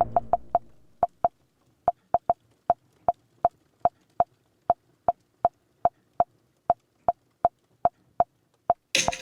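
A long run of short, sharp clicks at uneven spacing, about three a second, each with a brief tone. A louder crash begins near the end.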